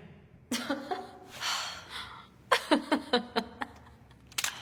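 A character's wordless vocal reactions: breathy exhales, then a short run of chuckling about two and a half seconds in.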